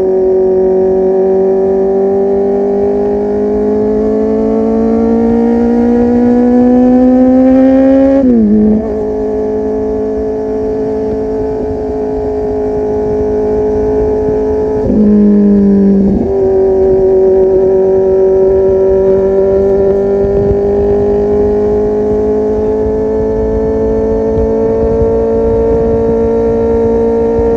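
Kawasaki Z800 inline-four running through a full-system aftermarket exhaust under way. The engine pitch climbs slowly as it pulls, then drops sharply at a gear change about eight seconds in. It holds steady, dips briefly again around fifteen seconds in, and climbs slowly once more toward the end.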